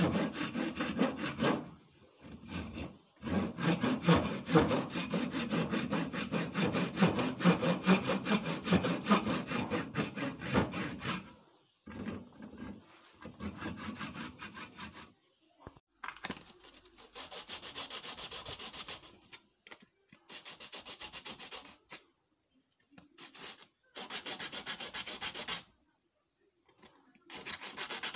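Hand saw cutting back and forth into a wooden ax handle clamped in a vise: a long steady run of strokes, then shorter bursts with pauses between them. Near the end, wood is rubbed by hand on a sheet of sandpaper.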